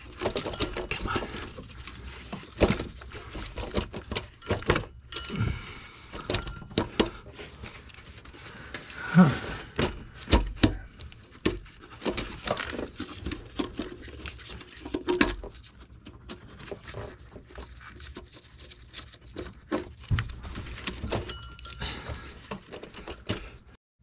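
Irregular metallic clicks, clinks and knocks of hand work on an engine: tools and loosened valve cover bolts being handled as the valve cover of a GM 3.6L V6 is worked off.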